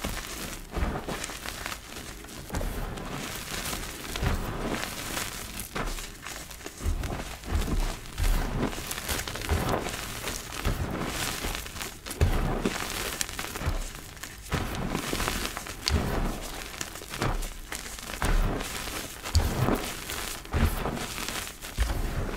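Hands crushing and raking powdery gym chalk and crumbled reformed chalk blocks, giving a run of irregular soft crunches with dull thuds as the powder is pressed and patted.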